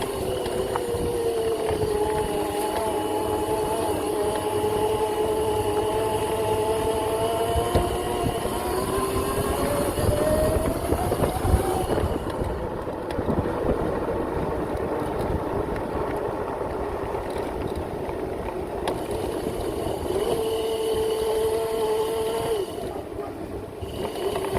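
Whine of a Razor MX650 electric pit bike's 5000 W motor under way. The pitch rises and falls with speed and climbs about halfway through, over a steady rushing noise from the ride.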